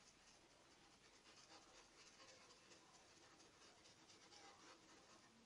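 Very faint scratchy rubbing of a paintbrush working fabric paint into a cotton towel in short repeated strokes.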